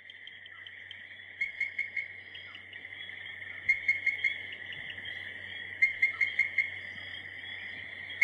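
A chorus of chirping insects: a steady high trill that swells over the first second, with louder groups of about five quick chirps coming roughly every two seconds.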